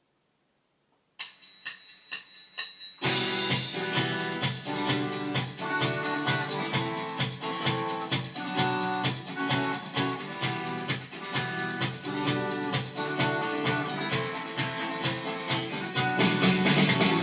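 Four sharp count-in ticks about half a second apart, then the instrumental intro of a rock backing track with guitar and a steady beat, which gets louder about ten seconds in. A thin, steady high tone runs through the music.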